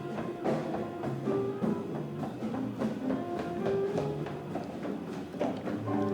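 Jazz piano trio playing live: acoustic piano with double bass low notes and a drum kit, a steady run of short notes.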